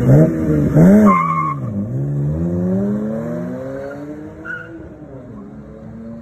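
Car engine revved hard in quick blips, then accelerating away, its note dipping and then rising steadily as it fades. A brief high squeal about a second in.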